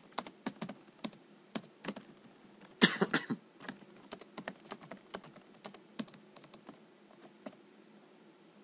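Typing on a computer keyboard: quick, irregular keystrokes, with a dense, louder flurry of keys about three seconds in. The keys stop about seven and a half seconds in.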